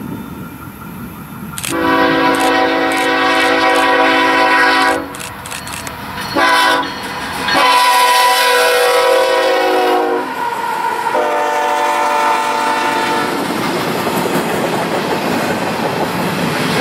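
BNSF GE ES44C4 freight locomotive's air horn sounding for a crossing at a whistle post: a long blast, a short one, then two more long blasts as the locomotives pass. After that come the rumble and clickety-clack of freight cars rolling by.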